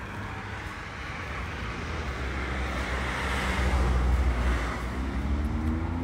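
Road traffic: a vehicle passing close by, its low rumble and tyre noise swelling to loudest about halfway through, then easing off.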